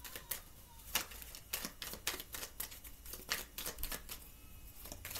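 Tarot cards being shuffled and drawn from the deck: irregular light clicks and taps of the card stock, a few strokes a second.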